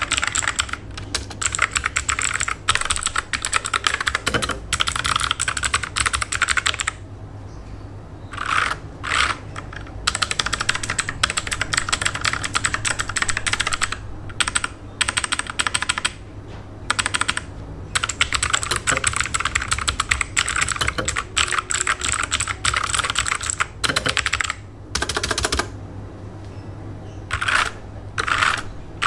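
Rexus Legionare MX5.2 mechanical keyboard with blue switches being typed on in fast runs of fairly noisy keystrokes, the clicky sound typical of blue switches. The typing stops briefly several times, first about a quarter of the way in.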